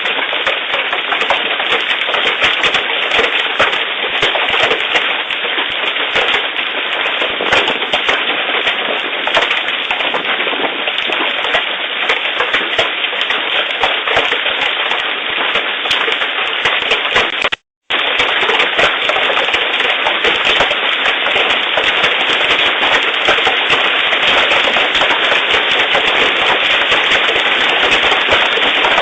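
Large hailstones, over three inches across, pelting down in a dense, continuous clatter of hard impacts, with a brief break about two-thirds of the way through.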